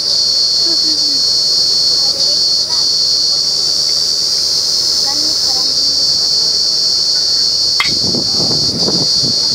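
Steady high-pitched chorus of insects, with a few faint bird chirps. Near the end there is a single click, then wind buffeting the microphone.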